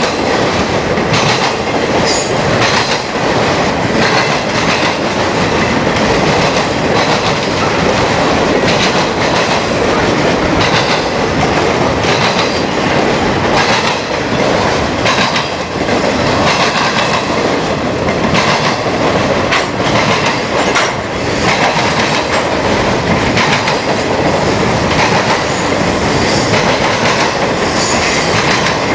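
BNSF piggyback freight train's flatcars, loaded with semi trailers, rolling past with a loud, steady rumble and irregular clacking of steel wheels over the rail joints, with a faint high wheel squeal now and then.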